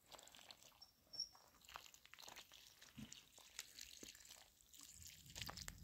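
Near silence with faint, scattered clicks and light scrapes.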